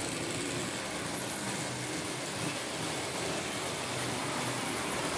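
Märklin H0 model trains running on the layout: a steady rolling rumble and whir of small locomotive motors and wheels on metal track.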